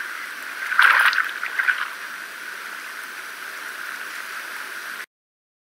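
Hot tub water bubbling from the jets, a steady rushing noise, with a brief louder burst about a second in. It cuts off suddenly about five seconds in.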